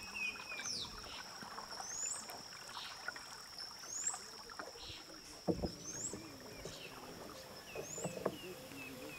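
Wooden dugout canoe moving on a calm river: soft water sounds and a couple of knocks on the hull. A steady high whine and a short rising bird call, repeated about every two seconds, sound through it.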